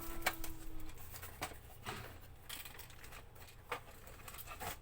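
Hard plastic toy parts being handled, with a string of irregular light clicks and knocks.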